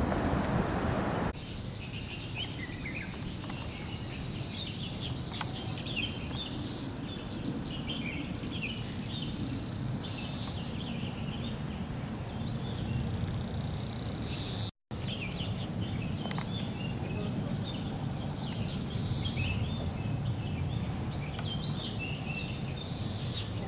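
Insects droning steadily, with a higher buzz swelling up every three to four seconds, and birds chirping throughout. It opens with about a second of louder rumbling noise before a cut. The sound drops out for an instant about two-thirds through.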